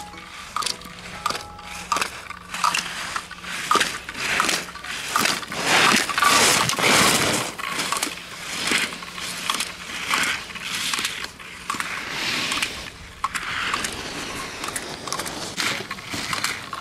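Slalom skis scraping and carving across hard-packed snow in a run of quick turns, each turn a rough hissing surge; loudest around the middle.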